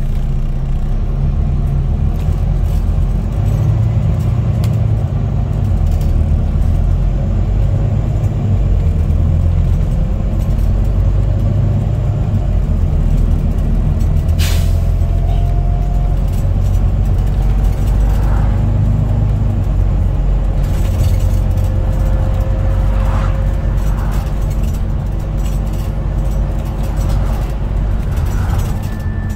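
Wright Gemini 2 double-deck bus heard from inside the passenger saloon while under way: a steady low engine and road drone, with a transmission whine that rises in pitch as the bus pulls away and gathers speed. About fourteen seconds in there is a short, sharp hiss of air from the brake system.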